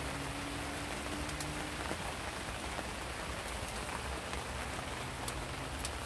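Steady rain falling: an even hiss with scattered sharp ticks of single drops striking close by.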